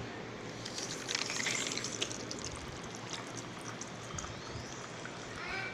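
Liquid being poured, a drink being mixed.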